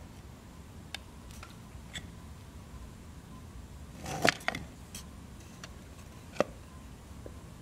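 Handling noise: a few light clicks, with a louder cluster of two or three knocks about four seconds in and another sharp click near the end, over a low steady room background.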